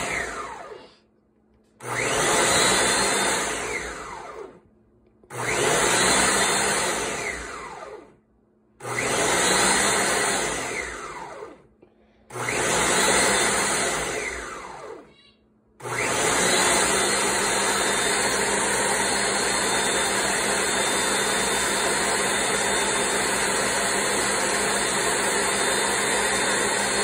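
Ninja countertop blender running an automatic program, grinding chickpeas, garlic, lemon juice and olive oil into hummus. It pulses about four times, each burst about three seconds long with the motor winding down in pitch and a second of silence between. It then runs continuously at a steady speed for the last ten seconds or so.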